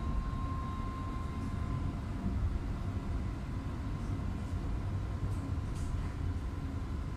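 Sydney light rail tram heard from inside the passenger car while running: a steady low rumble with a thin steady whine that fades about two seconds in, and a few faint high squeaks after the middle.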